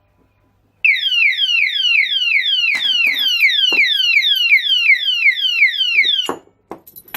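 Romak alarm padlock's built-in siren going off, set off by a tension wrench in the keyway: a loud electronic wail of rapid falling sweeps, about three to four a second. It cuts off suddenly near the end, followed by a few clicks of the lock being handled.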